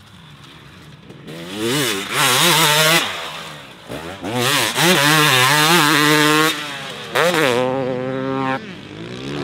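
Husqvarna TC 250 two-stroke motocross bike revving hard as it rides past, the engine pitch repeatedly climbing and falling with the throttle. It starts faint, is loudest through the middle, and revs up once more near the end.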